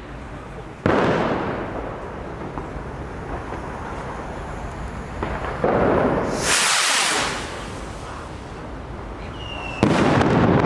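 Consumer firework set off from the ground: a sharp bang about a second in, then a hissing rush as it launches about six seconds in, and a loud bang as it bursts in the air near the end.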